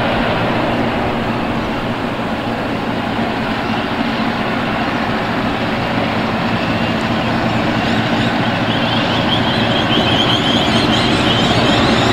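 Heritage EMD diesel-electric locomotives, B class B74 and S class S303, running with their train, their two-stroke diesels growing steadily louder as the train draws nearer. A higher wavering squeal joins from about nine seconds in.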